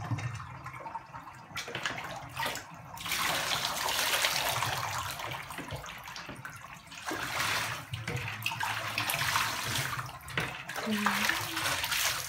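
Water running and splashing in a bathtub as a dog is bathed, in two long stretches starting about three and seven seconds in.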